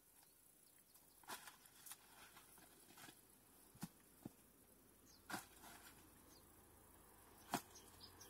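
Faint, sharp snaps and cracks, seven or eight scattered a second or two apart and the loudest near the end, from stems and brush being handled and broken in dense undergrowth.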